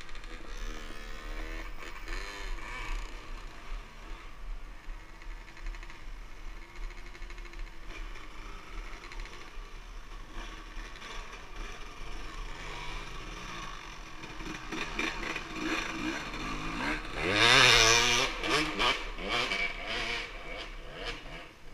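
Dirt bike engine revving up and down over and over, loudest about seventeen seconds in. A quick run of clattering clicks follows the loudest rev.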